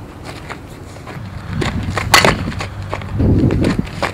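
A fastpitch softball bat strikes the ball once about two seconds in on a soft slap, a sharp crack. Quick footsteps scuff on the infield dirt around and after the hit.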